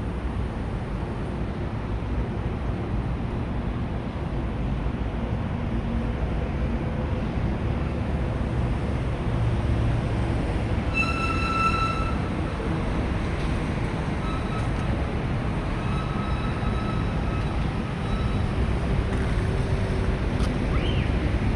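Steady outdoor rumble of traffic, with wind on the microphone. About halfway through comes a short, high-pitched beep, and fainter ones follow.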